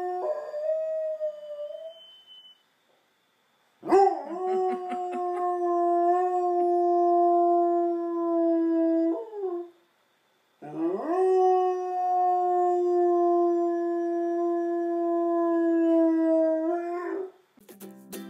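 Dog howling on pitch, in imitation of a fire truck siren: three howls, each scooping up at the start and then held steady. The first is short; the second and third last about five to six seconds each, with a brief quiet between them.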